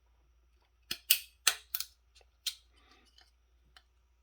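A flathead screwdriver prying at the catches of a stubborn metal RF shield can on a small circuit board. A quick run of sharp metallic clicks and snaps starts about a second in, followed by faint scraping.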